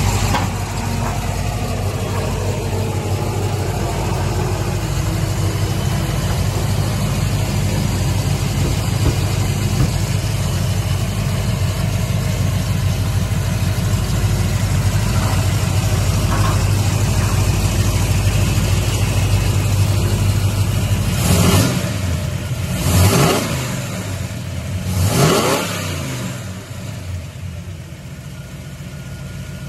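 A 1967 Pontiac GTO's 400 cubic-inch V8 idling steadily, then revved in three quick throttle blips about a second and a half to two seconds apart near the end, settling back to idle after each.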